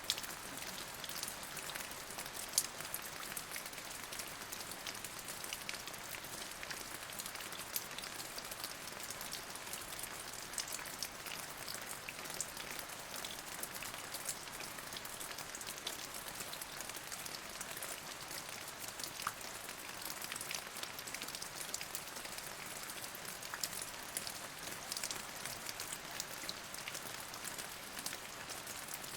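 Steady rain, with many individual drops ticking sharply over an even hiss of rainfall.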